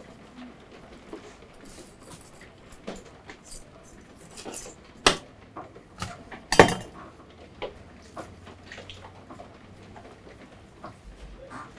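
A metal fork scraping and clinking against a stainless steel tray while skin is pulled off a smoked sturgeon, with two sharp clinks about halfway through.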